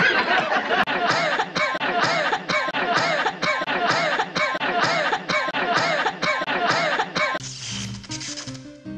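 A short vocal snippet, stutter-looped in an edit so that it repeats about two and a half times a second and forms a jerky rhythm. About seven and a half seconds in, it cuts to electronic music with a stepping synth melody.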